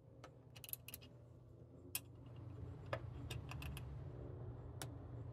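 Ratchet of a small torque wrench clicking in short, irregular runs as nuts are run down and torqued to 8 Nm, over a low steady hum.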